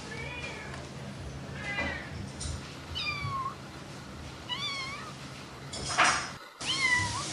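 A long-haired tabby cat meowing repeatedly: about six short meows, some falling in pitch and some rising then falling. A brief, loud noise cuts in about six seconds in.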